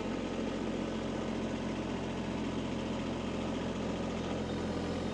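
Kubota B2301 compact tractor's three-cylinder diesel engine running steadily at an even speed.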